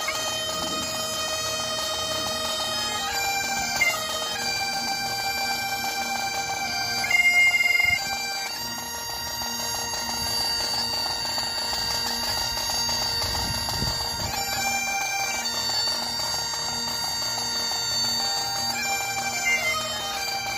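Great Highland bagpipes playing a slow tune in long held notes over their steady drones.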